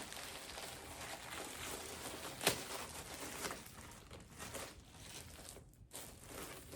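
Plastic packaging crinkling and rustling as a parcel is opened and handled, with a sharp snap right at the start and another about two and a half seconds in.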